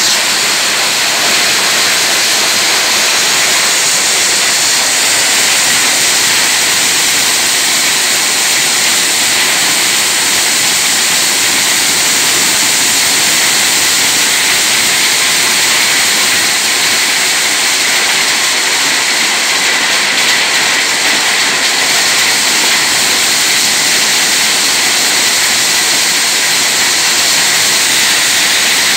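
Corn sheller rated at 6 tonnes an hour, running loaded while ears of corn are fed in and shelled: a loud, steady rushing din with no let-up.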